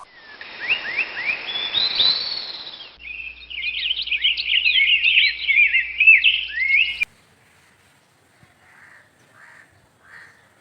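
Birds chirping: a few rising chirps, then a busier chorus of quick twittering calls that cuts off suddenly about seven seconds in, leaving only a few faint calls.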